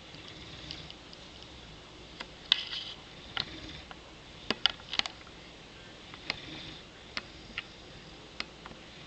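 Newfoundland puppy snoring softly in its sleep, a slow breathy snore swelling about every three seconds. A dozen or so sharp clicks are scattered through it and are the loudest sounds.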